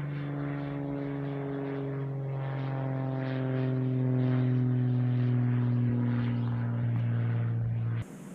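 Small propeller airplane passing overhead: a steady engine drone that grows louder and drops slightly in pitch as it goes over, then cuts off abruptly near the end.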